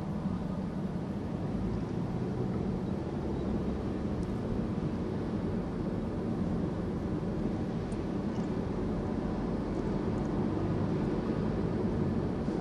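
Steady road noise of a car at highway speed: an even low hum of tyres and engine, with a few faint ticks.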